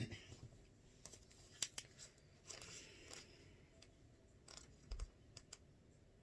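Pages of a book being leafed through: faint paper rustles and a few light clicks, with a longer rustle a little over two and a half seconds in.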